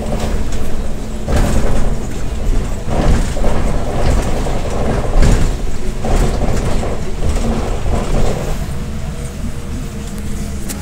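Interior of a MAZ-105 city bus under way: a steady low engine and road rumble, with several knocks and rattles from the body and doors.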